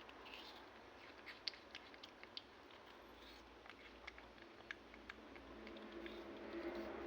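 Faint scattered small clicks and ticks, with a low hum building up near the end.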